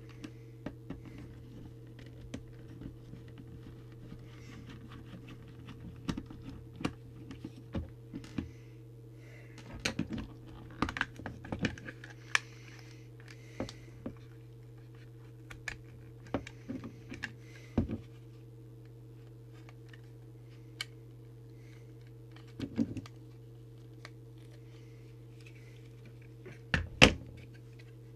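Small clicks, taps and knocks of a Jesan KT002 hand-portable walkie-talkie being unscrewed and its case taken apart by hand, over a steady low hum. The clicks come irregularly, with a sharper knock near the end.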